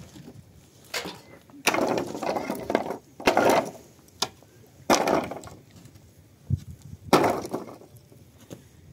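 Loose wooden planks being handled against a concrete-block wall: about half a dozen sharp knocks and scraping clatters, some brief and some lasting up to a second.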